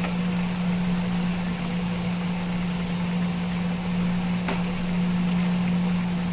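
A steady low motor hum over a constant rushing noise, like a fan running, with a faint click about four and a half seconds in as a spatula stirs the curry in a steel pan.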